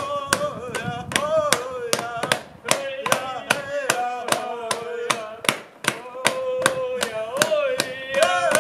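Background music: a fast, steady drum beat, about four hits a second, under a wavering melody line.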